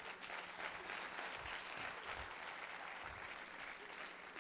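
Audience applauding, faint and rather distant, swelling and then thinning out toward the end.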